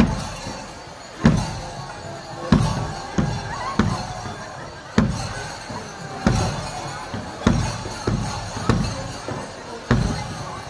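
Parade band music led by a bass drum, struck about once every second and a quarter with a few extra beats in between, over the murmur of the crowd.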